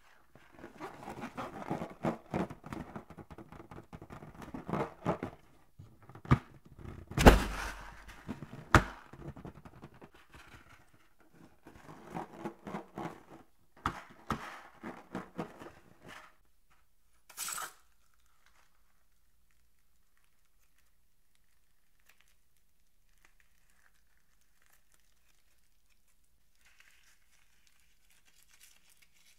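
Rubber balloons being handled and squeezed: rubbing and crinkling with a few sharp knocks through the first sixteen seconds or so, then one short sharp noise. After that it goes mostly quiet, with a faint rustle near the end as glitter beads are squeezed out of a limp balloon.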